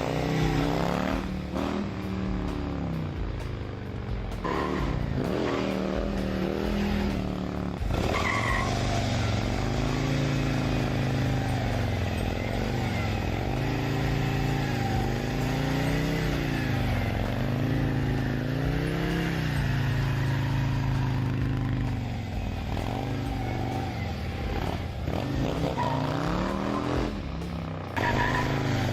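Harley-Davidson motorcycle engine revving up and dropping back again and again as the bike is ridden hard, each rise and fall lasting a second or two, with abrupt changes in the sound a few times.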